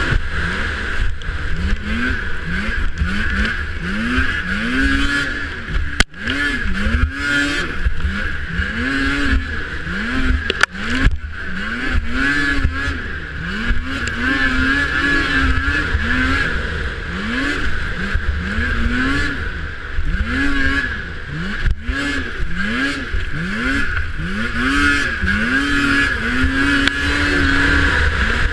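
Racing snowmobile's two-stroke engine revving up and falling back over and over, about once a second, under a steady high whine. A few sharp knocks come about six, eleven and twenty-two seconds in.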